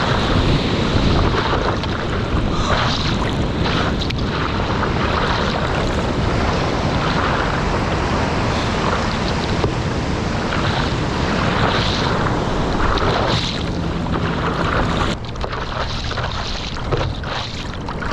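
Rushing water of breaking ocean surf with wind buffeting the microphone of a surfer's GoPro in the waves, a dense steady rush that eases slightly about fifteen seconds in.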